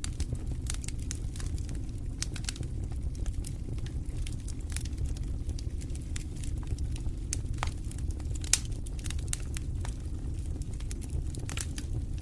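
Wood fire in a fireplace crackling, with frequent sharp pops and snaps over a steady low rumble of the flames. One louder pop comes about eight and a half seconds in.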